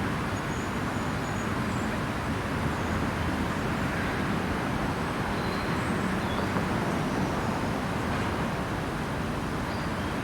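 Steady outdoor background noise with a low rumble, like distant traffic, and a few faint, short high chirps.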